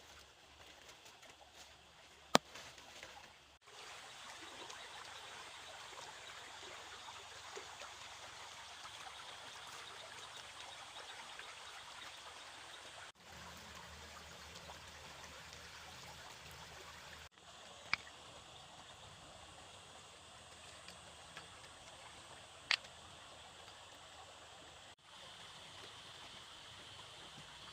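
Water running and trickling steadily, with a sharp knock about two seconds in and two fainter ones later; the flow breaks off briefly a few times.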